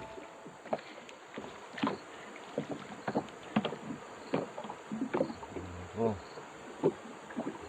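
Steady high-pitched drone of insects, with irregular sharp clicks and knocks scattered over it, and a short pitched sound about six seconds in.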